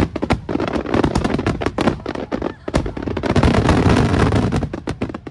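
Firework shells bursting in quick succession: many sharp bangs over a dense crackling wash, thickest and loudest about three to four seconds in.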